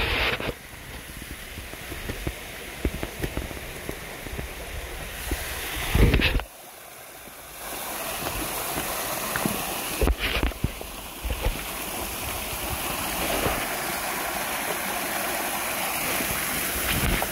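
Creek water running over rocks and a small waterfall, a steady rush that gets louder about halfway through. A few short thumps on the microphone break in.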